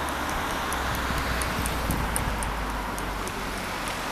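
Outdoor ambience of a quiet town square: a steady low rumble and hiss, with short high chirps scattered throughout.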